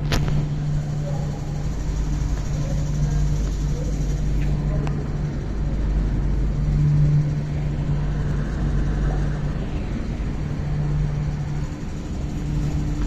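MTR Island Line Q-Train, a CRRC Qingdao Sifang-built metro train, moving along the platform behind the screen doors. It gives a steady low rumble of wheels and running gear with a low motor hum that comes and goes.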